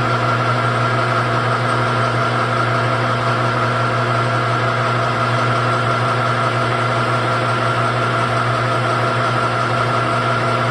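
Metal lathe running under power: a steady, even hum with several constant whining tones from the motor and headstock gearing.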